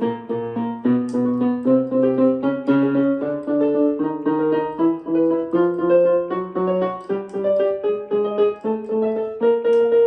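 Piano accompaniment for a quick vocal glissando exercise: short repeated note and chord patterns that move up step by step in pitch.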